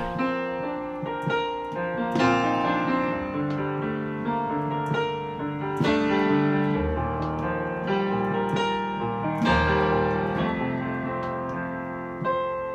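Solo piano played on a digital keyboard: struck chords that ring and fade, with a few deep bass notes, as the introduction of a slow ballad-style song before the singing begins.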